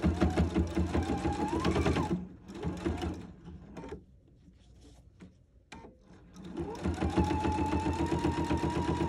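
Electric sewing machine stitching binding onto a knit dress through a binder attachment. It runs for about two seconds, stops for a few seconds with only a few small clicks, then starts stitching again. Its motor whine rises each time it gets up to speed.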